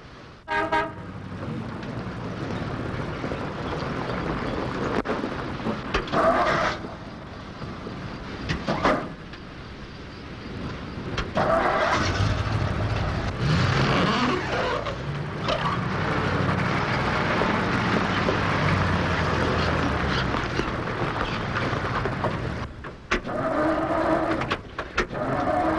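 Vehicle engine running as it drives, with a steady low rumble that is strongest in the second half.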